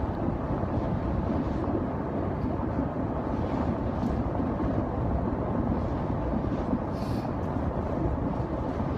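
Steady road and engine noise inside a moving car's cabin, a low even rumble.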